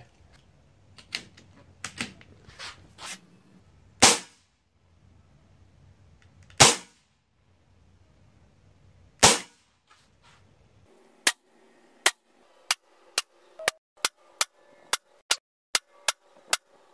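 Regulated FX Monsoon .22 semi-automatic PCP air rifle firing: a few faint clicks, then three loud sharp shots a few seconds apart, then a quick string of about a dozen shots, two or three a second, emptying the magazine.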